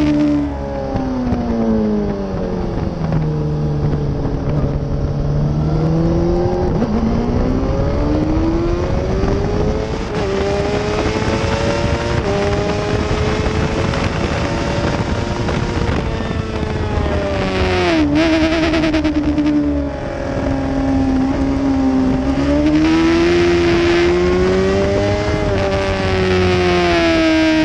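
Motorcycle engine heard onboard at racing speed with wind rush. The engine note falls steeply over the first few seconds as the bike slows, climbs again around 6 to 7 seconds in, and holds high. It dips sharply with a click about 18 seconds in, then rises and falls once more through the following bends.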